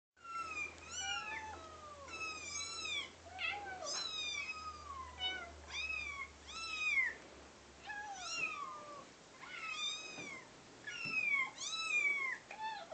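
Recorded kittens mewing, played through a phone speaker: a dense run of short, high mews that rise and fall in pitch, several overlapping, one to two a second.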